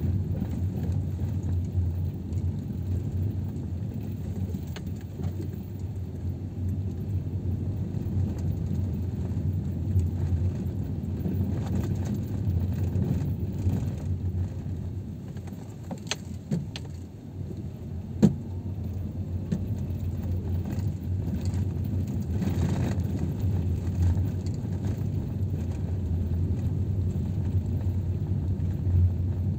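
Car driving slowly, heard from inside the cabin: a steady low engine and road rumble. A few light clicks a little past halfway, the loudest a single sharp click.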